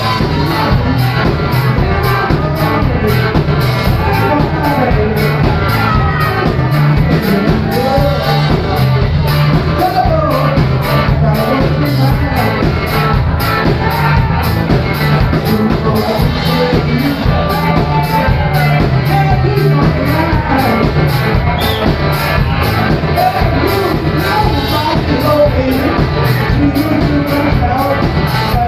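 Live rock band playing loudly, with electric guitars over drums keeping a steady beat.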